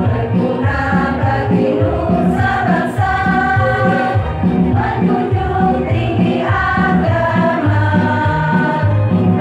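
Women's choir singing together, with a steady low beat underneath.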